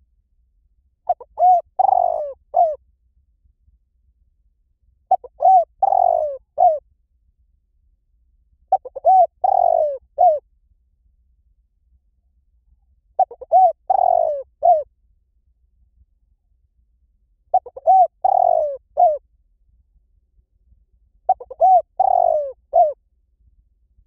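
Spotted dove cooing: six phrases about four seconds apart, each a few short coos followed by a longer falling croo and a short closing note. It is the call played as a lure to draw wild doves in.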